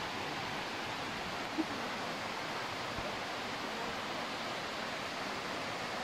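Steady rush of a waterfall and the water cascading over the rocks below it. One short faint sound comes about a second and a half in.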